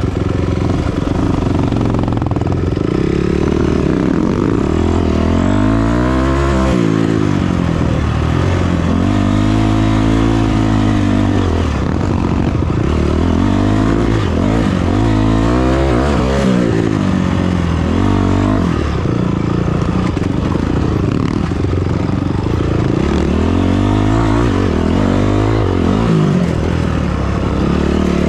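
Engine of an off-road vehicle under way, repeatedly revving up and easing off as the throttle is worked over rough ground.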